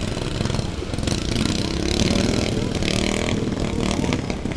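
Stock racing lawn tractor engines running hard, their pitch rising and falling as they rev, swelling louder from about a second in and easing off near the end.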